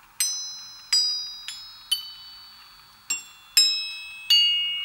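Animal-shaped metal glockenspiel plates, their thickness profiles computer-optimized to ring a chosen set of tones, struck one after another with a ball-headed mallet. There are seven strikes at different pitches, each ringing with several clear high tones that fade over about a second.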